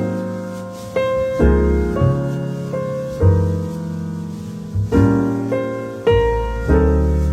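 Background piano music: slow chords struck about once a second, each ringing and fading.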